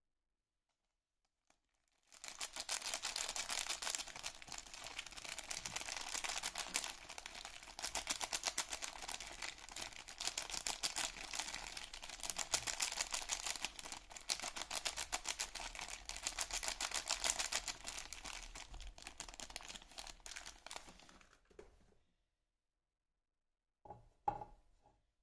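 Soap packaging crinkling and rustling as it is unwrapped close to the microphone: dense crackling full of tiny clicks, starting about two seconds in and lasting about twenty seconds before stopping. Two short handling sounds follow near the end.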